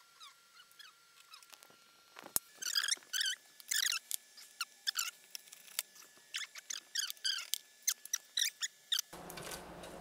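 Rapid high-pitched squeaky chirps, each a quick falling sweep, coming in dense clusters, with a single sharp click shortly before the busiest stretch. A steady hiss and hum sets in about nine seconds in.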